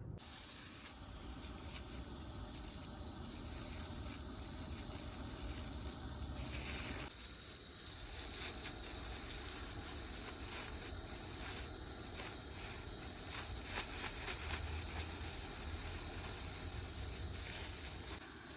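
Insects chirring steadily in a continuous high-pitched drone, which jumps to a slightly higher pitch about seven seconds in.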